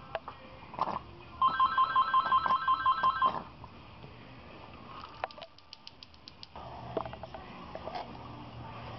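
A telephone rings with a rapid pulsing electronic trill for about two seconds, starting a second and a half in. A quick run of light clicks and handling of metal parts follow.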